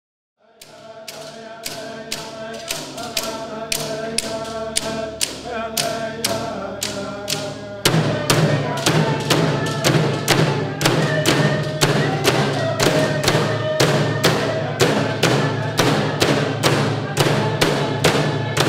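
Inuvialuit drum-dance music: large hand-held frame drums struck with sticks in a steady beat of about two to three strikes a second, fading in over a held pitched sound. About eight seconds in, it becomes louder and fuller.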